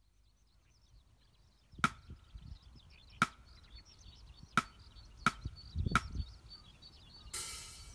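A skylark singing a faint, unbroken run of high chirps and trills. Over it comes a count-in of five sharp clicks, two slow and then three twice as fast, and the band comes in near the end.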